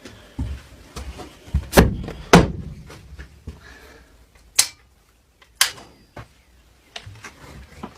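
A run of sharp knocks and clunks with no engine running: two loud ones close together about two seconds in, two more around the middle, and softer thuds between them.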